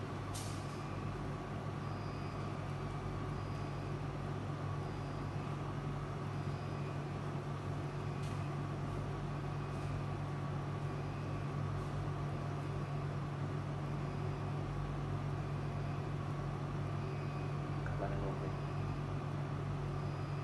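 Steady low mechanical hum that runs on without a break, with faint high blips every second or so.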